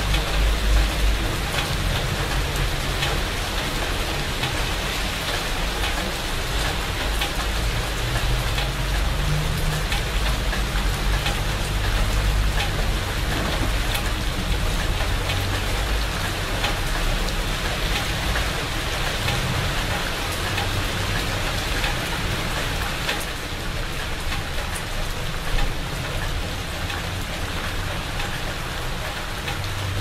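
Steady rain falling on leafy shrubs, a dense patter of drops, with a low rumble underneath.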